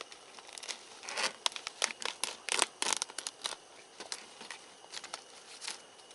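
Irregular crinkling and tearing sounds of material being handled, densest between about one and three and a half seconds in, then sparser.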